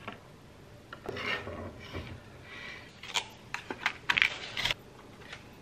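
Slotted metal spatula scraping browned ground beef across a wooden cutting board into a glass baking dish, then a quick series of light clicks and taps as dry lasagna noodles are laid in the dish.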